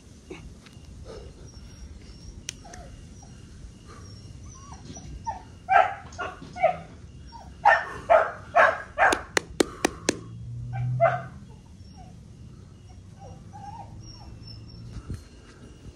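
A dog barking in a quick run of short barks through the middle, with a few sharp clicks among them.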